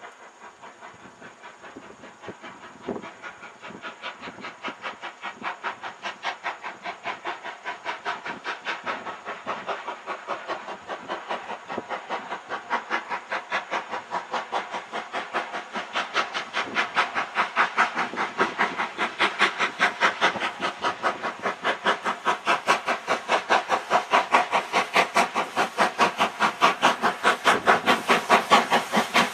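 LMS Black Five 4-6-0 steam locomotive approaching under steam, its exhaust beating about three times a second and growing steadily louder as it nears.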